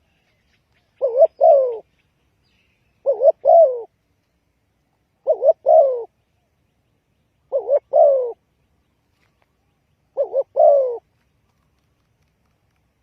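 Spotted dove cooing: five phrases about two seconds apart, each two short clipped notes followed by a longer falling coo.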